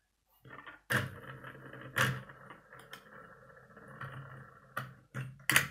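Plastic Lego pieces clicking and knocking as the model's rotor parts are handled, with several sharp knocks, the loudest about one and two seconds in and near the end.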